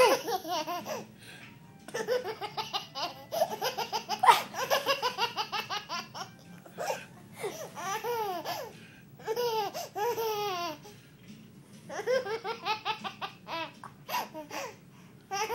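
Toddler laughing in bouts of quick, pulsing giggles and belly laughs, about half a dozen bursts separated by short pauses.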